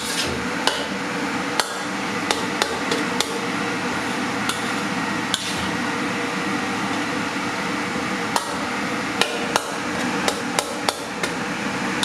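Metal spatula striking and scraping a wok while fried rice is stir-fried: irregular sharp clinks, sometimes two or three in quick succession, over a steady background hum.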